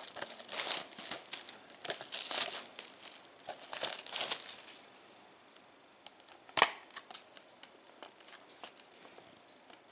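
Plastic shrink-wrap being torn and crinkled off a Blu-ray case for the first four seconds or so. A single sharp click comes about six and a half seconds in, followed by a few faint light ticks.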